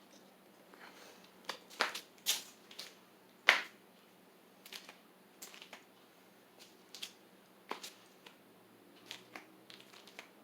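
Harbor Breeze Vector Elite ceiling fan coasting down after being switched off. Quiet, with a faint steady hum and about a dozen irregular sharp clicks and ticks, the loudest about three and a half seconds in.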